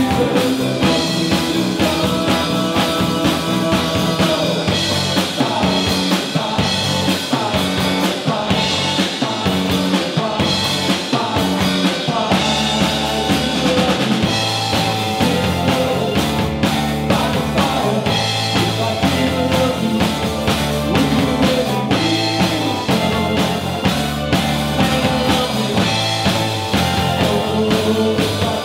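Live rock band playing: drum kit, bass guitar, electric guitar and keyboard together at a steady, loud level.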